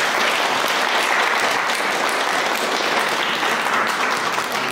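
Audience applauding, a steady clapping that starts to fade near the end.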